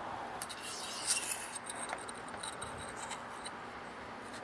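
Light scraping and small metallic clicks of a thin metal pump plate being handled by hand and fitted over a driveshaft and threaded studs, with a brief louder scrape about a second in.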